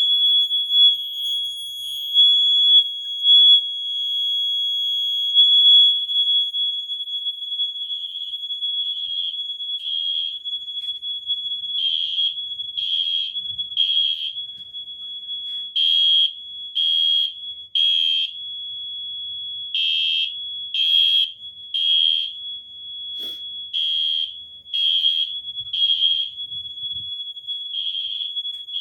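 Two mini fire alarm horns sounding together. A Siemens mini horn on continuous gives one steady high-pitched tone. A Wheelock MIZ mini horn set to code 3 (temporal pattern) sounds over it in groups of three short blasts, with a pause between groups.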